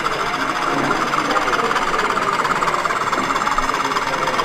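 Model Class 20 diesel locomotive running along the layout: a steady, rapid mechanical rattle.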